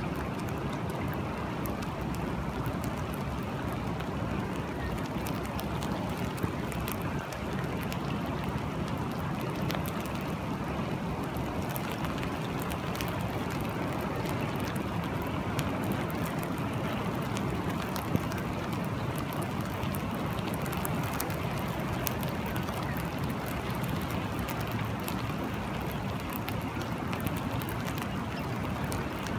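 Steady rain falling on a river and a sandy bank, with scattered single drops ticking close by over a low, steady rumble.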